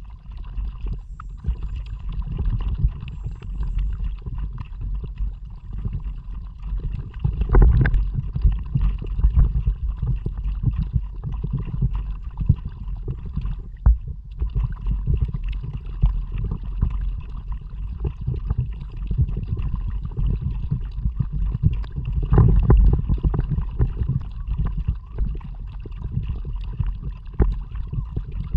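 Kayak paddling on open water, heard through an action camera's microphone: a steady low rumble of water and wind noise, with louder surges about eight seconds in and again past the twenty-second mark.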